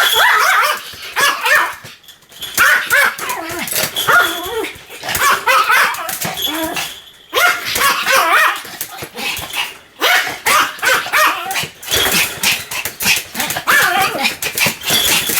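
Pomeranian barking over and over in quick, continuous barks, with brief pauses about two, seven and ten seconds in.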